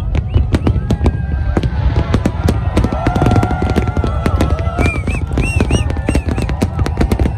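A big fireworks display: rapid, overlapping bangs and crackles over a continuous low rumble, with some higher held and wavering tones mixed in.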